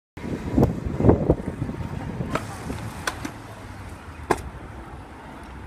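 Stunt scooter's small hard wheels rolling on skatepark concrete. A few heavy thuds come in the first second and a half, then single sharp clacks of the scooter striking the ground or a rail, at about two, three and four seconds in.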